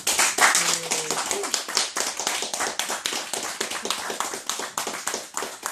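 A small group applauding: dense, fast hand-clapping that carries on steadily throughout.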